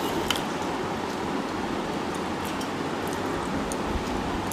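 Steady hiss-like background noise, with a few faint clicks and mouth sounds of people eating rice and curry with their fingers.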